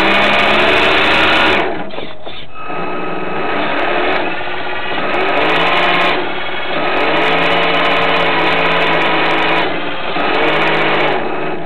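Small boat motor running in repeated surges of a couple of seconds each, its whine rising and falling in pitch as the throttle is opened and eased.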